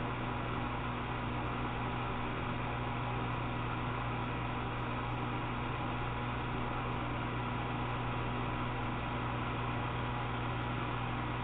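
Steady electrical hum under an even, fan-like hiss, with no change in level.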